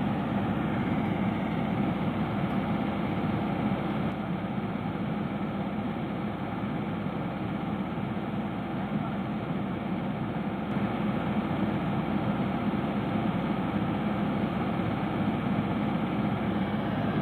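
Mitsubishi Triton pickup engine idling steadily while stuck in mud, held running as the engine cools after its temperature rose.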